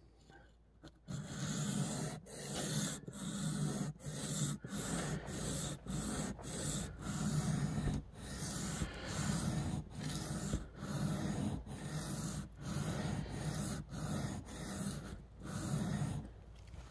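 Spyderco Para 2 Wharncliffe knife blade being stroked back and forth freehand across a wet sharpening stone, a scraping rub repeated about twice a second, starting about a second in.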